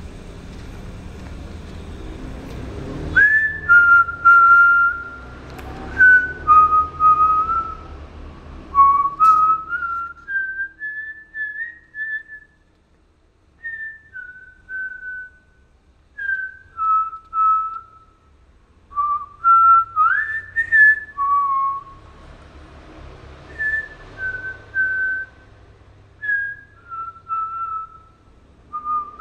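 A person whistling a slow melody, holding each note with small slides between them and breaking off between phrases.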